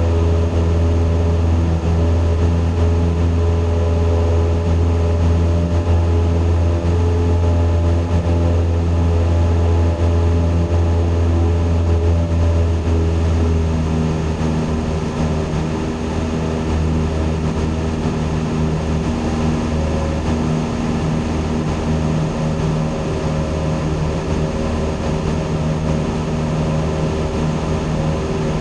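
Single-engine piston airplane's engine and propeller droning steadily in cruise, heard inside the cockpit. The deepest part of the drone eases a little about halfway through.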